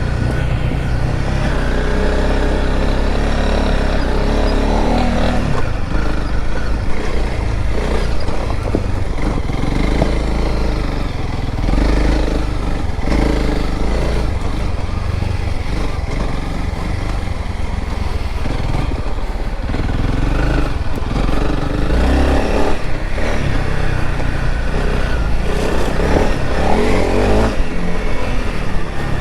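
Honda CRF300L Rally's single-cylinder engine running under load, revs rising and falling as the dual-sport bike is ridden off-road over a slippery, muddy trail, over a heavy low rumble. Scattered short knocks come through from the bike.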